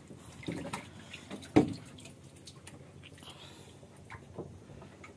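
Water dripping and splashing, with a few short knocks and one sudden loud thump about a second and a half in.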